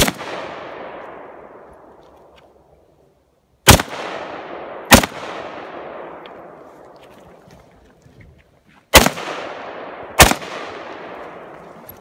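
AK-pattern (Kalashnikov) rifle firing five single shots: one at the start, then a pair about a second apart near four to five seconds in, and another pair near nine to ten seconds in. Each shot is loud and trails off in a long echo.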